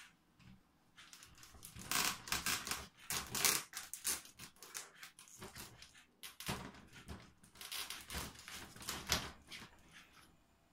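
A cat scratching and pawing at the bottom of a folding accordion door, its claws scraping and the door's panels rattling in quick clattering bursts. The bursts come in two bouts.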